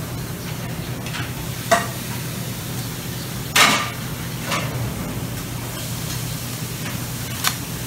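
Steady hiss and low hum of a buffet room, with a few sharp clicks and knocks of dishware being handled; the loudest knock comes about three and a half seconds in.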